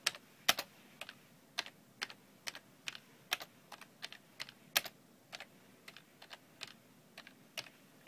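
Computer keyboard keystrokes: single keys pressed slowly and unevenly, about two a second, as a password is typed at a command prompt.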